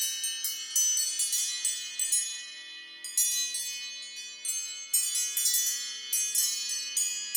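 An iPhone ringtone playing: a tune of bright, bell-like chiming notes struck in quick runs, each ringing out as it fades.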